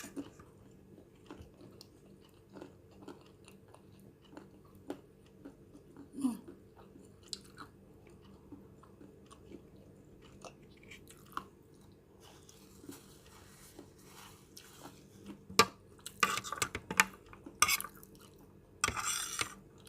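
A person chewing and eating fried noodles close to the microphone: soft, scattered mouth clicks and smacks, with a denser run of louder eating sounds near the end.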